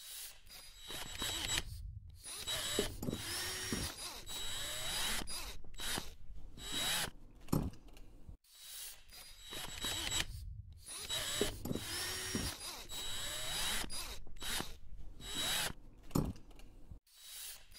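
Mechanical robot sound effects: whirring servo motors that glide up and down in pitch, mixed with clicks and clunks of moving joints. The same sequence plays twice, each pass ending in a brief dropout.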